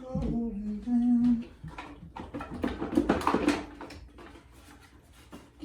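A voice singing a slow melody, followed by a couple of seconds of light clattering and knocks.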